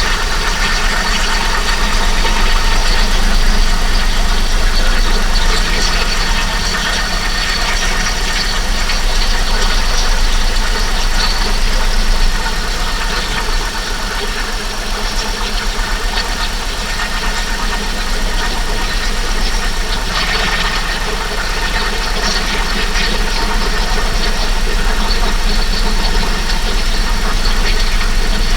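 Holden VX Commodore's 3.8-litre Ecotec V6 idling steadily, just restarted after about three years parked and left at idle to warm the oil.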